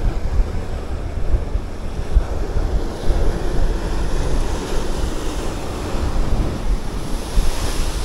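Wind buffeting the microphone over the wash of sea waves. Swells of surf hiss come about four seconds in and again near the end.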